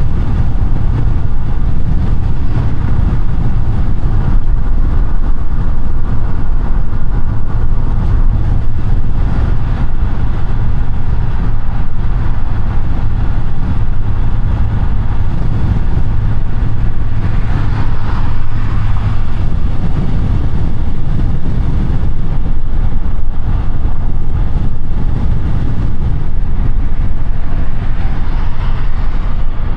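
Audi A5 8T driving at a steady pace: a steady low engine hum under continuous road and tyre noise. There is a brief swell of higher-pitched noise a little past halfway.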